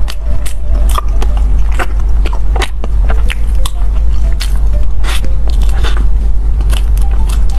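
Close-miked chewing and biting of a soft bread sandwich filled with purple rice and cream: many short mouth clicks and smacks, several a second, over a steady low hum.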